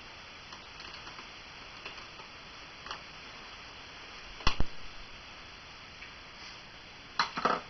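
Handling noises from work on a fridge control unit: two sharp clicks close together about four and a half seconds in, a fainter click before them, and a short clatter near the end, over a low background hiss.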